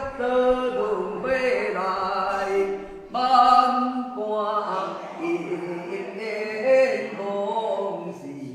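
A woman singing an unaccompanied chant in long held, gliding notes, phrase after phrase: a spirit medium's channelled song.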